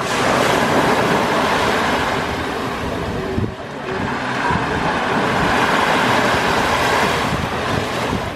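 Mediterranean surf washing onto the beach: two waves surge in one after another, the second about halfway through, each a long hissing rush.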